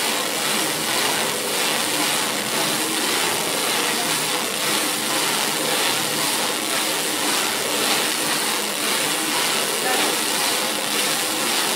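Box stretch-film wrapping machine running, its rotating table and rollers turning the carton as it is wrapped, making a steady, even machine noise.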